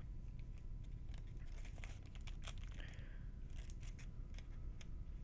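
A foil trading-card booster pack wrapper being opened, with crinkling and tearing made up of many small crackles.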